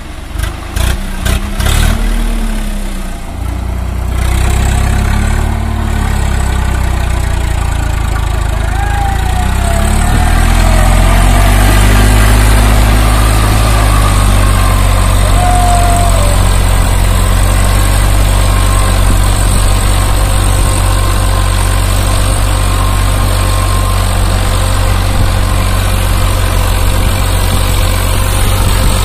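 Swaraj 855 tractor's three-cylinder diesel engine revving up and down a few times, with a few sharp knocks near the start, then running hard at steady high revs under load while pulling through deep sand.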